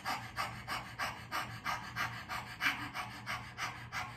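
A woman panting rapidly in and out through her open mouth with her tongue out, like a dog, in an even rhythm of about four breaths a second: the 'dog breath' breathing exercise.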